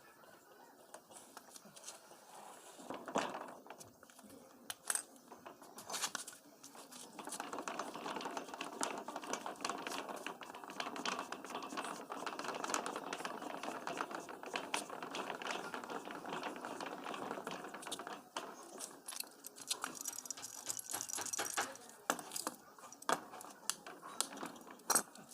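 Metal parts and tools of a hand pump being handled: repeated clinks, knocks and rattles, with a longer stretch of steady rasping noise in the middle.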